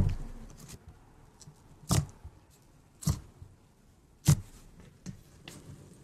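Thick pink slime being pressed and squeezed by hand, giving four loud, sharp pops and slaps about one to two seconds apart, then two softer ones near the end.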